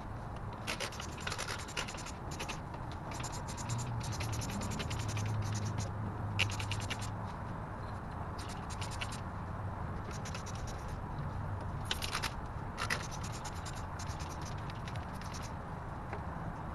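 Brush scrubbing oily grime off engine parts, in short runs of quick scratchy strokes with pauses between them.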